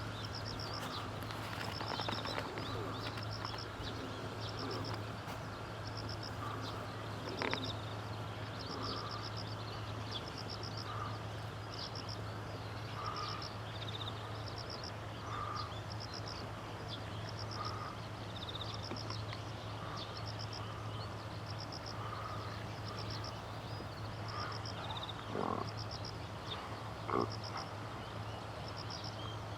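Outdoor animal calls: a high, rapid pulsed call of about five quick notes repeating every second or two, alternating with lower short calls, over a steady low hum.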